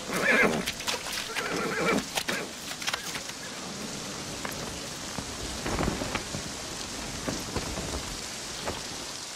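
A horse whinnying near the start, with sharp knocks and clanks in the first few seconds, over a steady hiss.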